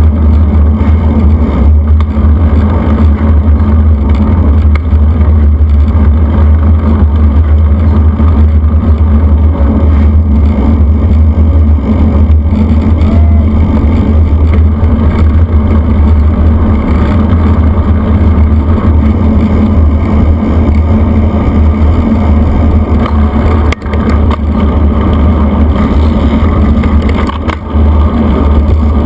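Heavy wind buffeting on the microphone of a camera mounted on a road bike descending at speed, a loud, steady low rumble with tyre noise from the pavement beneath it. It eases briefly twice near the end.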